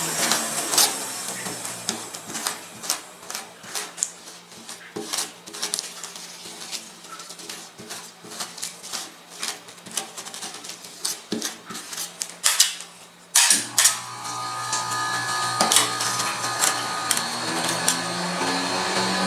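Metal spatulas tapping and scraping on the cold steel plate of a rolled ice cream machine, chopping and spreading the coffee ice cream mix. Under the irregular taps runs the machine's low hum, which drops back after the start and returns louder about thirteen seconds in.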